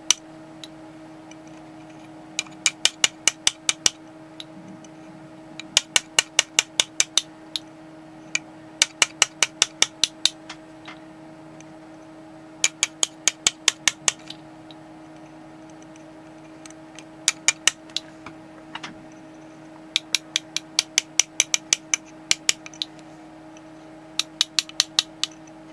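Light hammer taps on the back of a flat graver made from a hardened concrete nail as it cuts into a coin. The taps come in short quick runs of six to ten, about five a second, with pauses between the runs, over a low steady hum.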